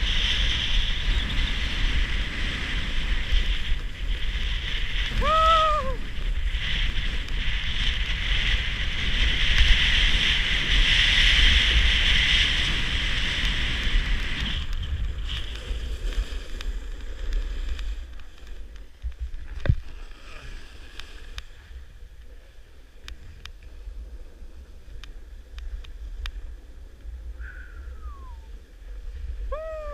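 Wind rushing over the camera microphone with the hiss and scrape of sliding downhill on groomed snow. It drops to a quieter hiss about halfway through. A short high squeak sounds about five seconds in, and another two near the end.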